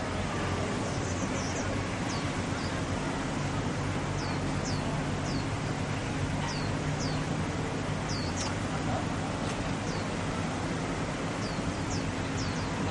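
Small birds chirping: short, high, down-sweeping notes, one or two a second, over a steady low hum and an even outdoor background noise.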